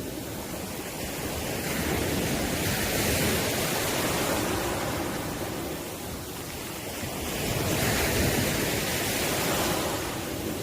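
Sea waves breaking and washing up the shore, swelling twice: once about two seconds in and again around eight seconds in.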